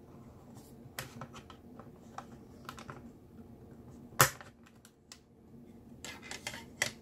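Plastic snap-fit clips of a portable hard drive enclosure popping and snapping as a small flathead screwdriver pries the case apart: scattered sharp clicks, the loudest snap about four seconds in. A few more clicks come near the end as the lid comes free.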